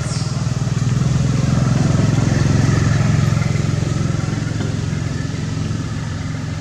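A motor engine running steadily, growing louder over the first couple of seconds and easing off toward the end, as of a motorbike or similar vehicle going by.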